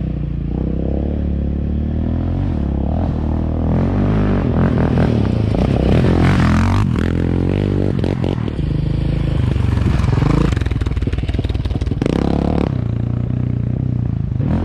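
Yamaha Raptor 700R quad's single-cylinder four-stroke engine being ridden, revving up and down with the throttle, its pitch rising and falling.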